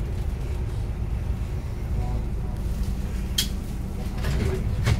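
Inside the cabin of a VDL Citea XLE-145 city bus on the move: steady low rumble from its 8.7-litre Iveco Cursor 9 diesel engine and the road. Two sharp clicks cut through, one about three and a half seconds in and one near the end.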